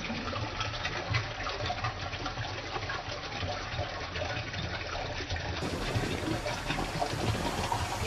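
Steady rush of stream water in a rocky pool, with splashing water as a jumper's splash settles.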